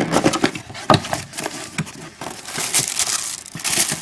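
Tissue paper crinkling and rustling as a cardboard gift box is opened and unpacked, with a sharp tap about a second in. The rustle grows denser in the second half.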